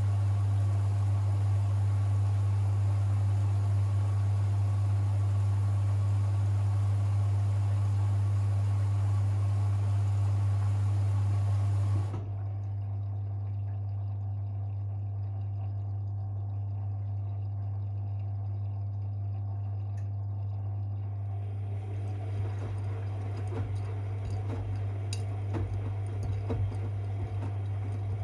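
Privileg 5020 front-loading washing machine early in an Easy-Care 40 °C wash, taking in water: a steady low hum with water rushing in. About twelve seconds in the rushing stops abruptly and a quieter hum remains. In the last few seconds there are light splashes and clicks.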